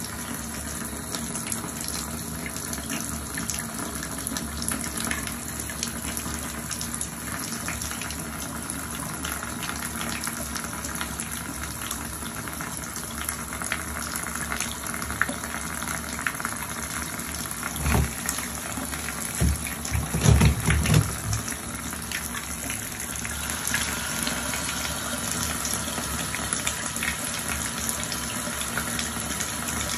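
Tap water running steadily into a bathtub and flowing down the open drain, with the stopper out after the clog was cleared. A few short low thuds come about two-thirds of the way in.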